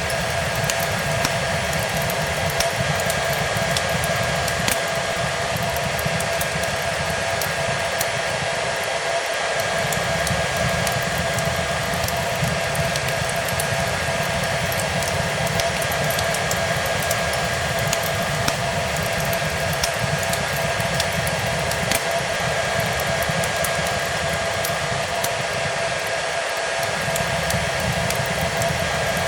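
Hair dryer running steadily with a constant whining tone over its rushing airflow, mixed with a crackling fireplace that gives small scattered snaps.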